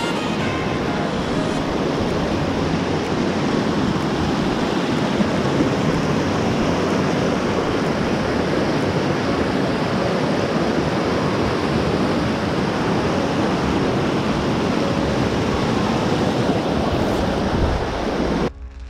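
Fast mountain creek rushing over rocks and small rapids: a loud, steady wash of water that cuts off abruptly near the end.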